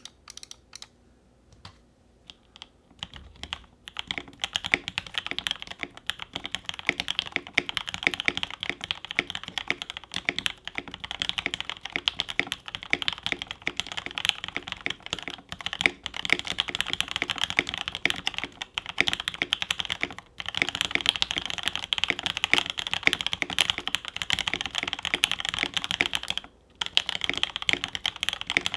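Typing on a polycarbonate-case mechanical keyboard with a brass plate, lubed Tangerine R2 linear switches and GMK keycaps. It starts with a few single keystrokes, then runs into fast, continuous typing with two brief pauses; the sound is deep.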